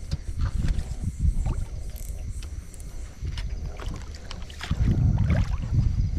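Wind rumbling on the microphone, louder for the last second and a half, with scattered clicks and knocks from an angler working a rod and reel on a small aluminium boat while playing a small fish.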